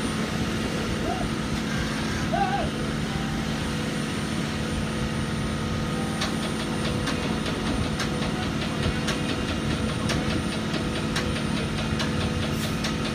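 Cat AP655F asphalt paver running steadily while laying asphalt, its diesel engine and hydraulics making a constant drone. From about halfway through, a quick, regular clanking of metal parts joins in.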